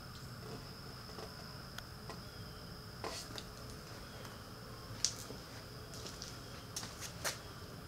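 Quiet background with a steady high-pitched whine and a low hum, broken by a handful of short sharp clicks, the loudest about five seconds in.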